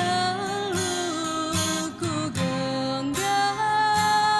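A young woman singing into a microphone over strummed acoustic guitar accompaniment, her voice wavering in pitch on sustained notes, then holding one long, higher note for the last second or so.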